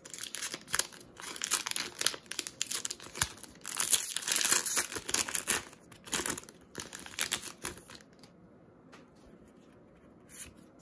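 A Magic: The Gathering Core Set 2020 pack's foil-lined wrapper being torn open and crinkled by hand: a dense crackle for about seven seconds, loudest midway, then only faint rustles as the cards are drawn out.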